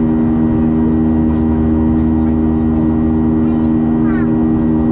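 Boeing 737 jet engines heard inside the passenger cabin in flight: a loud, steady drone with an unchanging multi-tone hum.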